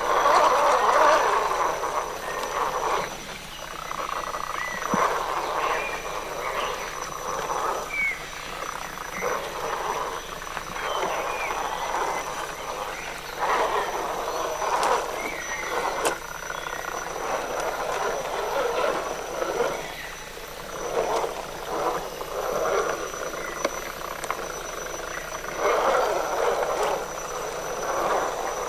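Electric motor and geared drivetrain of a Traxxas Stampede 4x4 radio-controlled truck whirring in irregular bursts of throttle, each lasting a second or so, as it crawls over wet mud.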